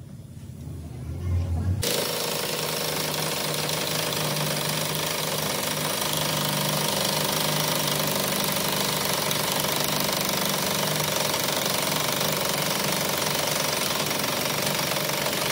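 Pneumatic impact wrench hammering continuously on the pinion nut of a Hino truck rear differential, tightening the nut onto the companion flange. It starts abruptly about two seconds in and runs without a break.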